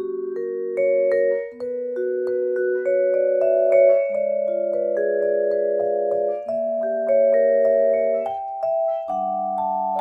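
Solo vibraphone played with four mallets: sustained chords and melody notes that ring on into one another, the harmony changing every second or two.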